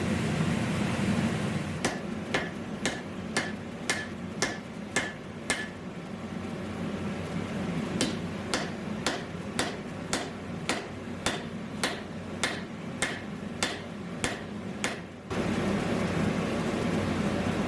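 Hammer blows on hot steel at the anvil during a forge weld, evenly spaced about two a second with a short ring on each strike. There are two runs of blows with a pause of a couple of seconds between them. A steady rushing noise is heard at the start and comes back suddenly near the end.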